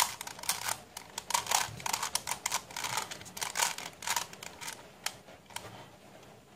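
Plastic face-turning octahedron puzzle being turned by hand: rapid, irregular clicking and clacking of the pieces as the faces twist. The clicks thin out after about five seconds.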